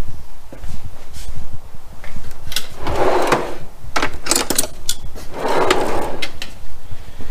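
Metal tool chest drawers sliding open and shut, twice, about three seconds in and again a little before the end, with sharp clinks of tools rattling inside between them. A low rumble runs underneath.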